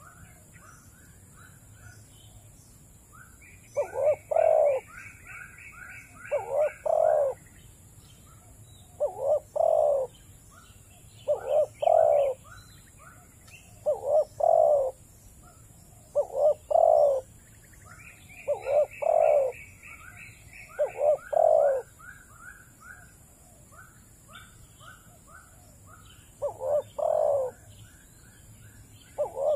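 Dove cooing: loud two-part coos repeated every two to three seconds, with a pause of a few seconds near the end. Twice, another bird gives a quick run of higher chirps.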